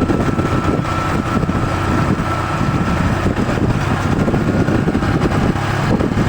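Bus on the move: a steady low engine and road rumble, with a faint thin whine that fades out about halfway through.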